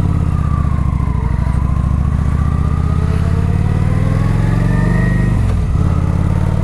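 Kawasaki Vulcan 900 Classic's V-twin engine running through its stock exhaust, heard from inside the rider's helmet. The engine note holds steady, with a brief dip in pitch about five and a half seconds in.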